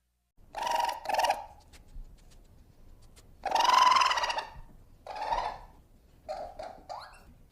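Baby monster creature sound effects: a series of short raspy squawking calls, the one about halfway through the longest and loudest, with a quick rising squeak near the end.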